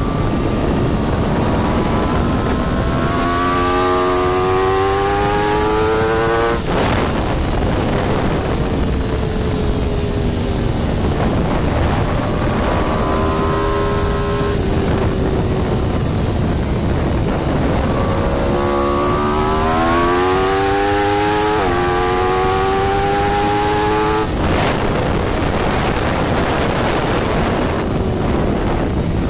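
Aprilia RSV4's V4 engine accelerating hard on track, its pitch climbing in three pulls, over heavy wind rush on the microphone. The longest pull comes late and drops a step in pitch partway through before climbing again, as on an upshift. The first and last pulls break off sharply as the throttle closes.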